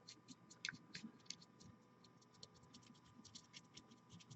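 Faint, irregular scratchy ticks, several a second, of a small paintbrush dabbing and stroking paint onto a plastic miniature.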